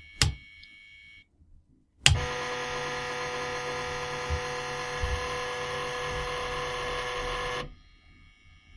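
Floppy drive's head stepper motor, pulsed by an Arduino, buzzing one steady pitched tone that starts suddenly about two seconds in and cuts off sharply near the end, with a single click just before. The maker suspects its sound changes because the head gets stuck at one end of its travel.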